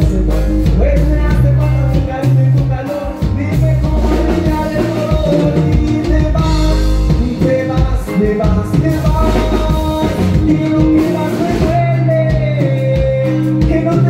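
Live norteño band music playing loudly, with a sung melody over a steady bass line and drums.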